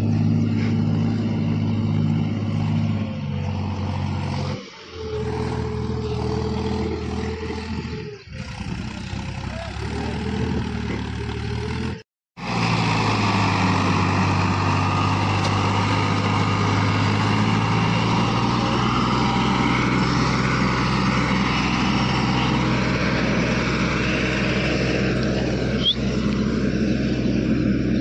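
Diesel tractor engines running steadily under load as they pull trolleys heaped with soil across a ploughed field. The sound breaks off briefly three times, and the engine note changes after each break. The last, longest stretch is a Farmtrac 60.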